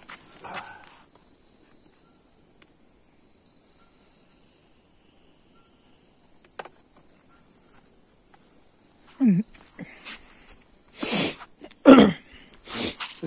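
Steady high-pitched drone of night insects, with a few loud short sounds near the end.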